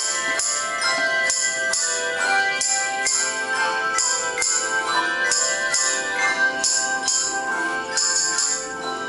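Handbell choir playing a tune: many bells ringing in sustained, overlapping tones. A steady rhythmic jingling keeps the beat over them.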